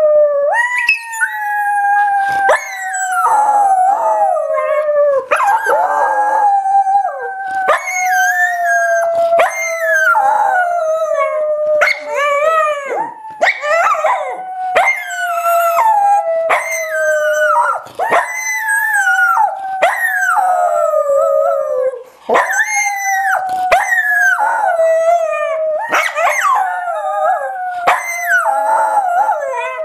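Dog howling ('singing') in long drawn-out howls that slide slowly down in pitch, broken every second or two by short yips and cracks in the voice.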